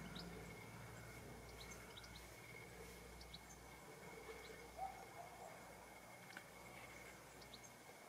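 Near silence: faint garden ambience with a steady faint high tone and a few scattered, very short faint high chirps.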